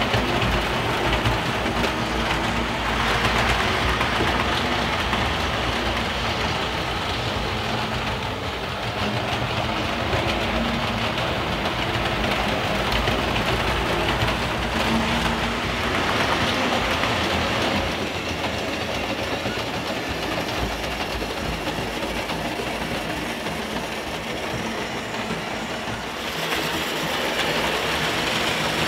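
H0 model trains running on stamped-metal Märklin M-track, their metal wheels rattling and clattering steadily over the rails and joints, getting louder near the end as a locomotive passes close by.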